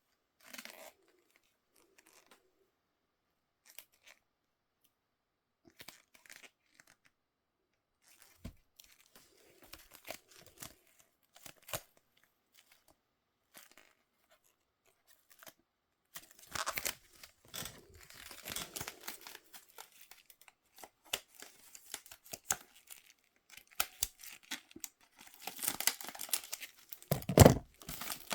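Toy packaging being unboxed by hand: cardboard and plastic tearing and crinkling in short bursts. It is sparse at first and grows busier and louder from about halfway through.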